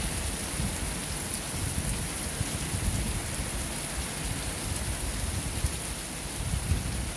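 Heavy rain pouring down onto an asphalt road: a steady, dense hiss of rain on pavement.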